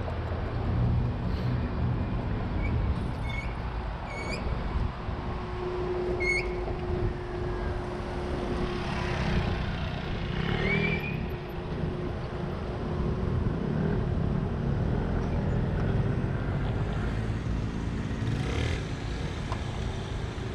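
City street traffic at a busy crossing: a steady low rumble of vehicles and road noise. A motor scooter passes close by around ten seconds in, and a few short high chirps sound early on.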